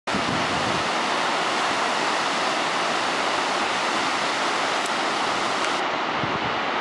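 Steady rushing of the River Tyne in spate, its brown floodwater swollen after heavy rain and breaking over rapids.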